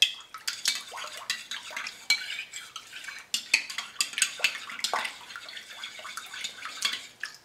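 A metal spoon stirring in a ceramic bowl of soapy water and oil, with quick irregular clinks against the bowl's sides, some of them ringing briefly.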